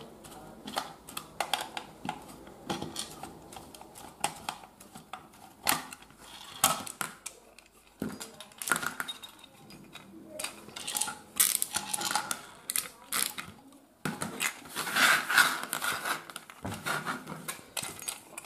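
A small screwdriver turns screws out of a plastic extension-board casing, then the plastic front plate and box are handled. Irregular clicks, taps and light clatter of plastic and small metal screws.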